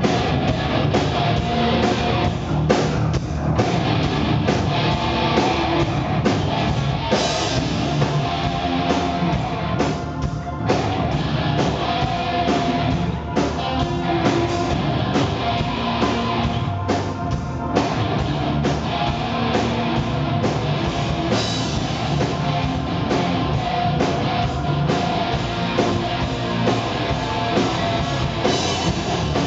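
A live rock band playing: electric guitar over bass guitar and a drum kit, loud and continuous.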